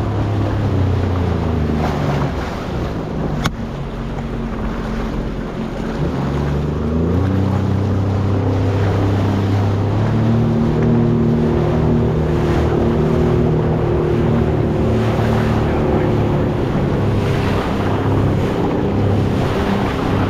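Motorboat engine running under way, its pitch dipping and then rising again about six seconds in before settling steady, with wind buffeting the microphone and rushing water. A single sharp click about three and a half seconds in.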